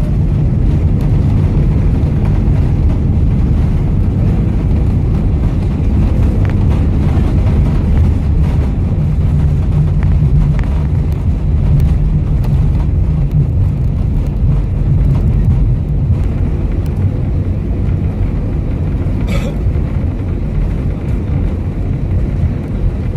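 Airbus A320 cabin noise on the ground just after landing: a loud, steady low rumble of the engines and the aircraft rolling, easing slightly near the end. A brief hiss-like sound comes about three-quarters of the way in.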